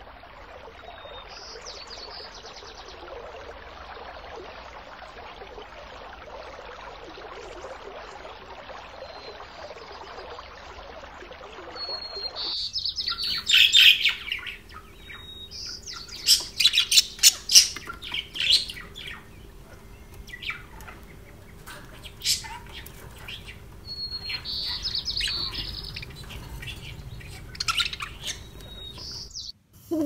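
A steady hiss of aquarium water with a few short high chirps over it, then an abrupt change to budgerigars chirping and squawking in quick, loud bursts over a low steady hum.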